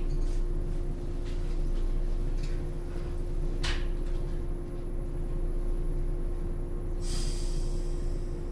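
JR 107 series electric train standing at a station, its onboard equipment giving a steady hum over a low rumble. A single click comes a little past the middle, and a sharp hiss of compressed air about seven seconds in lasts about a second.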